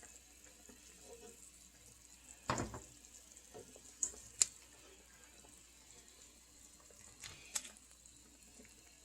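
A few light clinks and scrapes of a utensil in a dish of cooked chicken and broth as the meat is pulled apart, over a faint steady hum.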